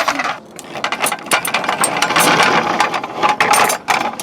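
Rapid, irregular mechanical clicking and rattling, like a ratchet or small gears working.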